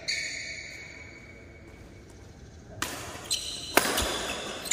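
Badminton racket strokes on a shuttlecock in a large, echoing sports hall. There is one sharp hit with a short ringing tone at the start, then a quiet stretch, then a quick run of about four sharp hits, one with a dull thud, in the last two seconds.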